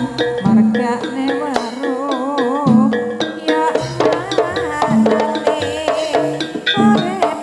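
Live Javanese jaranan (kuda lumping) music: a steady drum beat with a wavering, vibrato melody line over it.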